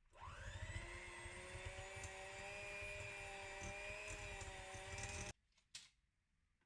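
Small electric kitchen appliance motor spinning up with a quick rise in pitch, running steadily with a whine for about five seconds, then cutting off suddenly, followed by a brief click.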